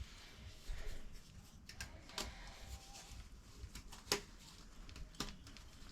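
A few light, separate clicks and knocks, about four over several seconds: small handling noises of plumbing tools and fittings being worked on.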